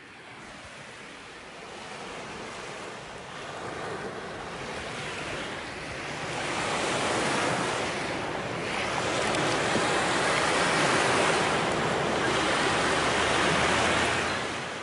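Ocean surf: waves breaking and washing in as an even rushing. It fades in, swells twice, and fades out near the end.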